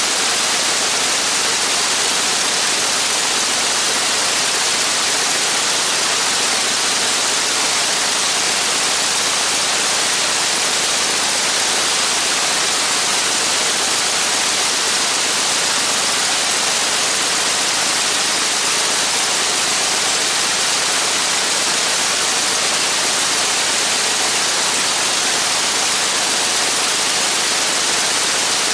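Steady, even hiss like static or white noise, unchanging throughout; no engine is running.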